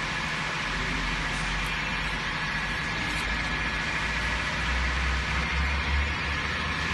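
Steady machinery noise in a stone factory hall, with a low rumble that swells about two thirds of the way through.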